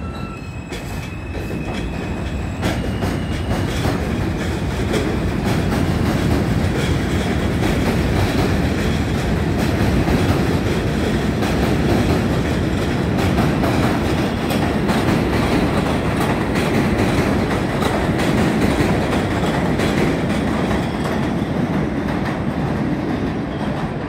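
R160 subway train accelerating away from an elevated station. Its propulsion motors whine in rising steps over the first few seconds, then the wheels clatter steadily over the rail joints as it gets louder and picks up speed.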